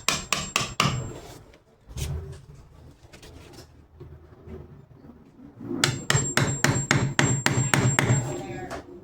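Rapid hammer taps, about five a second, in two runs: a short run at the start and a longer run of about a dozen strikes past the middle, with a thin metallic ring over the strikes.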